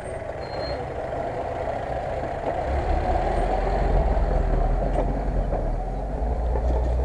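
Chevrolet Niva SUV driving slowly past at close range over a muddy track, its engine running steadily, with a deeper low rumble coming in about three seconds in as the car passes.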